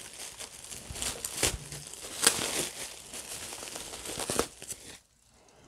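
Plastic wrap and bubble wrap crinkling and tearing as it is cut and pulled apart with a small knife, in irregular crackles with a few sharper snaps; it stops abruptly about five seconds in.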